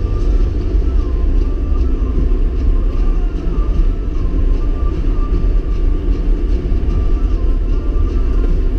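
Steady low rumble of a vehicle driving slowly along a snow-packed road, with a thin whine that wavers slightly in pitch.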